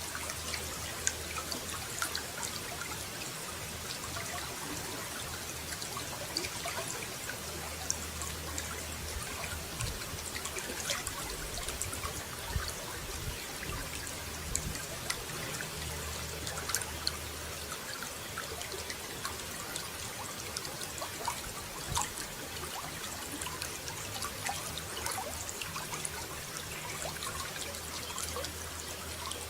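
Running water trickling and splashing steadily, with many small droplet splashes all through.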